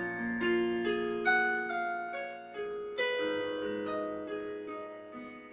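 A keyboard playing a slow instrumental intro: chords and single notes struck about every half second and left to ring, fading away near the end.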